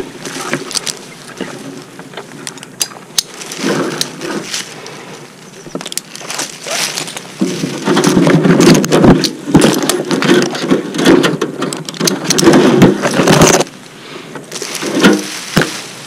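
Leaves and twigs brushing and crackling against a helmet-mounted camera as a climber moves down through a tree, with scattered clicks from climbing gear. The rustling grows louder and denser for several seconds from about halfway through.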